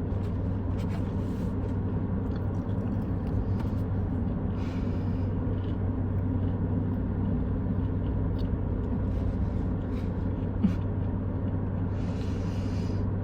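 Steady low hum of a car idling, heard from inside the cabin, with a few faint clicks and a brief hiss about five seconds in and again near the end.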